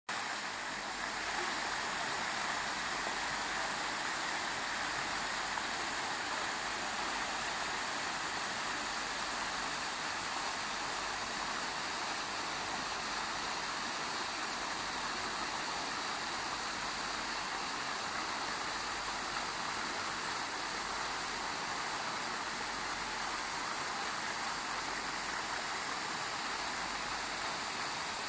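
Fountain jets in a pond splashing steadily: a constant rush of falling water.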